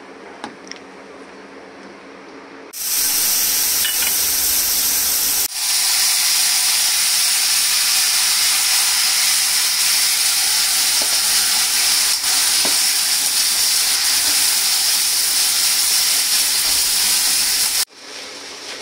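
Tomatoes and green chillies sizzling loudly as they hit hot oil with cumin: a steady frying hiss that starts about three seconds in and cuts off suddenly near the end.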